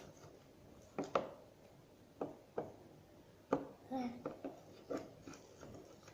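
Irregular sharp knocks and taps of a utensil against a bowl as slime is stirred and mixed, roughly one or two a second.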